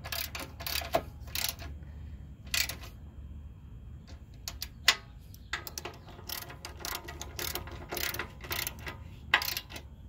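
Hand ratchet wrench clicking in short runs as its handle is swung back and forth, tightening nuts onto mounting studs.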